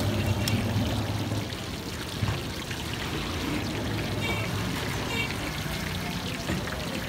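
Shami kababs deep-frying in a wide pan of oil, the oil sizzling and bubbling steadily around them.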